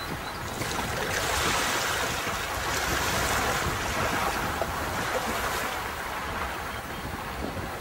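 Sea waves washing up onto a beach: the surf noise swells about a second in and eases off after the middle, over a steady low rumble.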